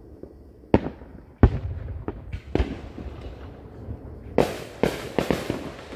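Aerial firework shells bursting: a run of booms with echoing tails, the two loudest close together about a second in, then a quick cluster of sharper reports near the end.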